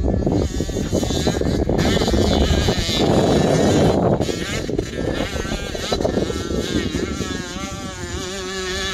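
Distant dirt bike engine on a motocross track, its pitch rising and falling as the rider works the throttle, plainest in the second half. A loud low rumble covers the first half.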